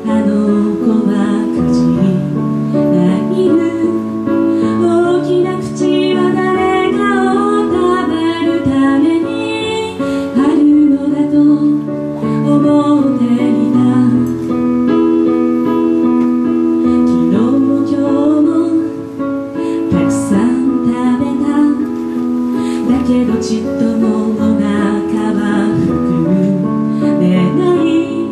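A woman singing into a microphone while accompanying herself on an electronic keyboard, which plays sustained chords beneath her voice.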